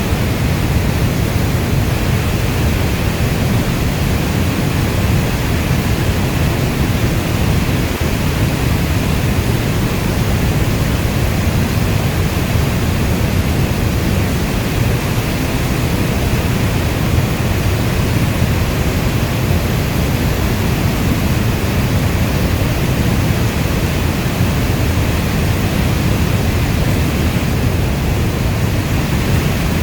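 Steady heavy rain: a dense, even rush with no separate drops or thunder, deep and weighted toward the low end.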